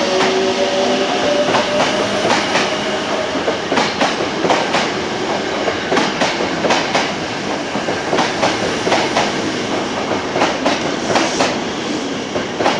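Hankyu 8000-series electric train gathering speed, its wheels clacking over rail joints in irregular groups as the cars roll past. The rising whine of its GTO-inverter traction motors fades in the first second or two.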